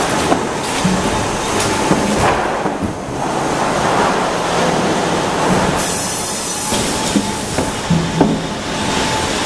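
Sawmill machinery running: a dense, steady rumble and clatter from the log conveyors and log-handling equipment, with scattered sharp metal clanks, several close together near the end.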